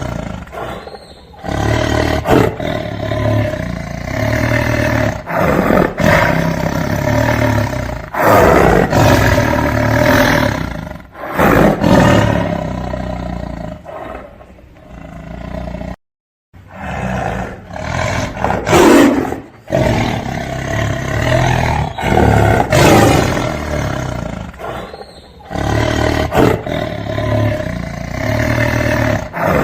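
Tiger roaring again and again: a run of loud roars with short pauses between them, broken by a moment of dead silence about halfway through before the roaring resumes.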